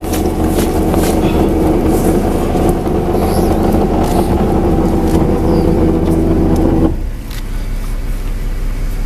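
Boat engine running steadily, heard from the deck, with scattered clicks and knocks. About seven seconds in, the sound drops to a quieter, lower hum.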